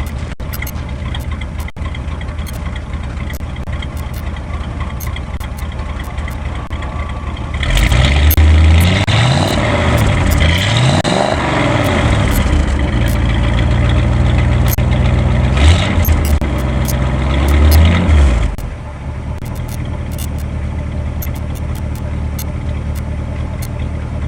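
1958 Ford Thunderbird's 352 V8 idling steadily. About eight seconds in it is revved several times over roughly ten seconds, the exhaust note rising and falling, and then it drops back to idle.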